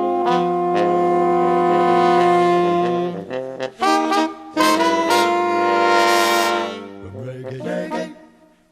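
Reggae horn section of trumpet, saxophones and trombone holding a long chord, then a few short stabs about halfway through and another long held chord that fades out near the end.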